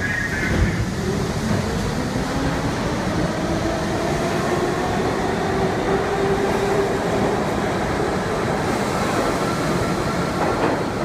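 New York City Subway R42 train pulling out of the station, its wheels rumbling on the rails, with the traction motors' whine rising in pitch as it gathers speed.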